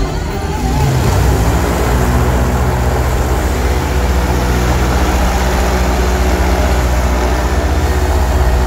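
Motorboat engine running steadily as the boat speeds across the water, growing louder about a second in, with a low, even hum.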